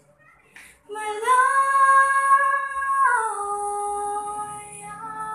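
A teenage girl singing unaccompanied: a long held note starting about a second in, then stepping down to a lower note that she holds for about two seconds.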